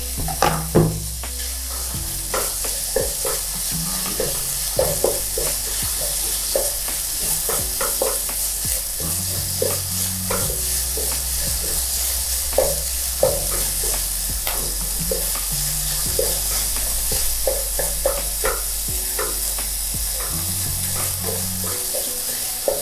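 Chopped shrimp, jicama strips and mushrooms sizzling in oil in a nonstick wok while a wooden spatula stirs them, with irregular clicks and scrapes of the spatula against the pan.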